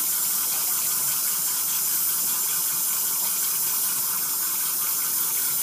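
Water running steadily from a tap into a stainless steel kitchen sink, an even hiss that does not change.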